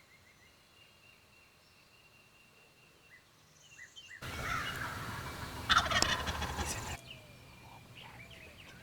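Wild turkey gobbling: a rattling call that is loudest a little before six seconds in, heard over outdoor background hiss. Faint small-bird chirps come earlier.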